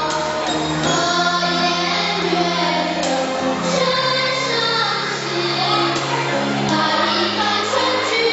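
A group of young children singing a song together over backing music, with long held bass notes under the voices.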